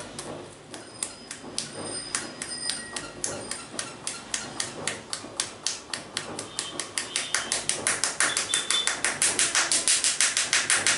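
Rapid percussive hand strokes on a person's head during an Indian head massage: a quick run of sharp taps, speeding up and getting louder over the last few seconds.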